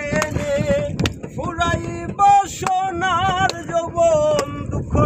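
A voice singing a slow melody, holding long notes that waver up and down, over a low rumble of wind on the microphone.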